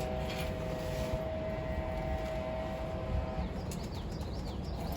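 Steady low machinery rumble with a held whining tone that stops about three and a half seconds in; a bird chirps a few times near the end.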